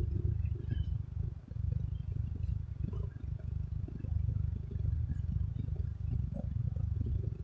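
A steady low rumble with a few faint, scattered clicks.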